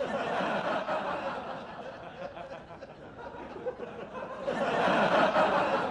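Audience in a lecture hall laughing together. The laughter is loud at first, eases off, then swells again about four and a half seconds in.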